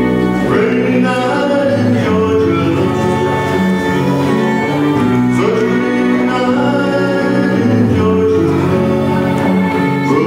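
Live small string band playing a song: fiddle carrying the melody over upright bass, acoustic guitar and electric guitar.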